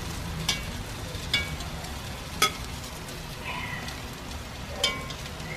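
Chicken and marinade sizzling steadily in a cast-iron Dutch oven. Metal tongs click sharply against the pot four times as the chicken pieces are set down on the rice.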